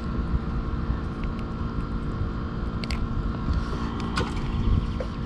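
Small petrol longtail boat engine running steadily, with a few faint light ticks.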